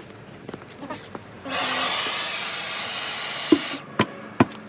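A power tool starts about one and a half seconds in, its high whine rising to speed and then holding steady, runs for about two seconds and cuts off, followed by three sharp knocks.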